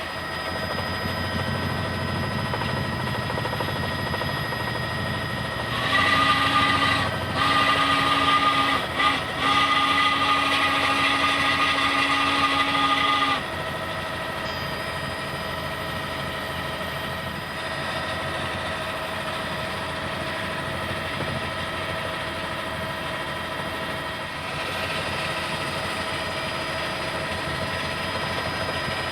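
A steady mechanical drone of a news helicopter's engine and rotor, made up of several held tones. From about six seconds in, a louder chord of several tones sounds for about seven seconds, broken by three short gaps, then cuts off and the drone carries on.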